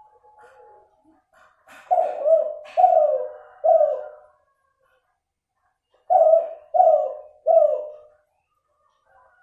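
Crossbred Kelantan-strain spotted dove (derkuku, F2 of a derkuku × cuhu cross) cooing: two phrases of three falling coos, the second phrase starting about four seconds after the first. The breeder judges this bird's voice still nasal, with an inconsistent number of end notes.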